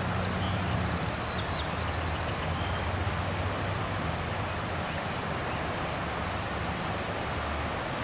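The Chippewa River in major flood, rushing past as a steady wash of water noise with a low rumble underneath. Birds chirp in quick high series during the first three seconds.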